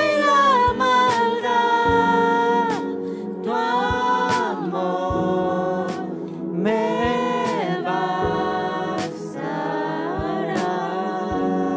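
Worship song sung in Spanish: voices hold long notes and slide between them, with short percussion hits recurring through it.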